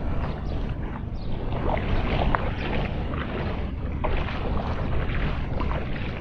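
Wind rumbling on the microphone over a steady hiss of rain, with scattered small ticks and splashes.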